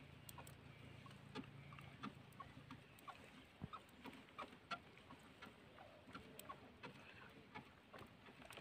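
Near silence: faint scattered ticks as a fishing handline is pulled in hand over hand in a wooden dugout canoe, with a faint low hum that stops about three seconds in.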